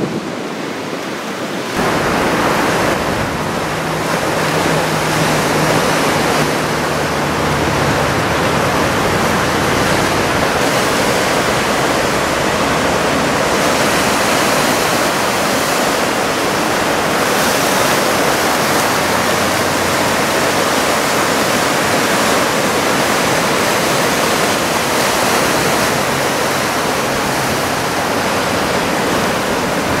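Ocean surf breaking and washing ashore in a steady rush, growing louder about two seconds in.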